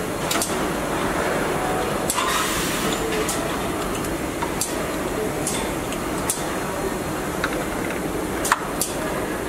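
Car assembly plant din: a steady machinery rumble with scattered sharp metallic clicks and clanks, a louder clank about eight and a half seconds in, and a short hiss about two seconds in.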